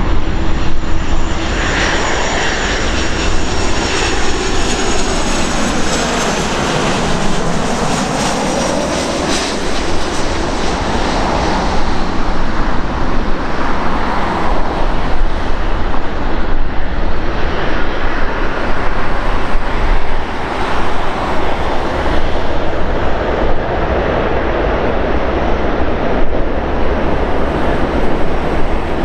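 Airbus A330-300 jet engines running as the airliner taxis slowly and turns onto the runway. The jet noise is loud and steady, and in the first ten seconds a tone in it sweeps down in pitch and back up.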